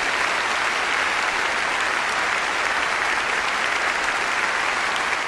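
A large audience applauding steadily: dense clapping from a packed auditorium.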